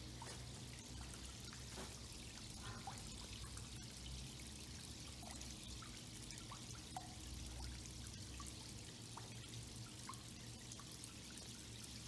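Water from a weeping-wall fountain running down its stone-tile face into the basin below: a steady, faint trickling splash with scattered drips.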